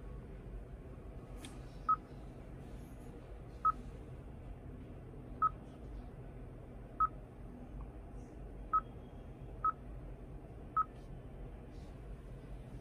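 Seven short, identical single-tone beeps at irregular intervals over a low steady background: the 2021 Hyundai Santa Fe's infotainment touchscreen confirming each tap as ambient-light colours are selected.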